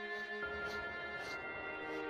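Background music: soft ambient sustained chords, the chord changing about half a second in.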